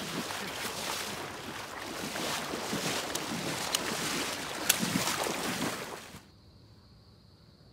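Someone wading through shallow marsh water, the legs sloshing and splashing, with a few sharp splashy clicks. The sloshing stops about six seconds in, leaving a faint steady high hum.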